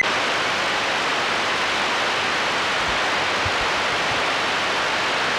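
CB radio receiver putting out steady static hiss with no station coming through: the band has gone dead quiet.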